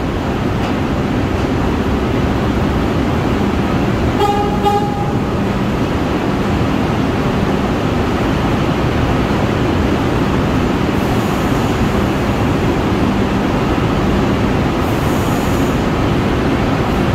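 New York City subway train running with a steady, loud rumble, and a short toot of the train horn about four seconds in.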